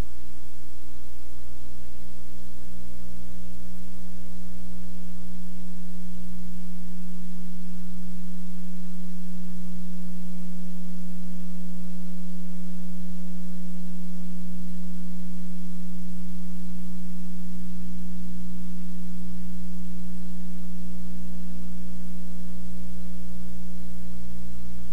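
Loud, steady electrical hum: a low, unchanging buzzing tone with fainter higher overtones.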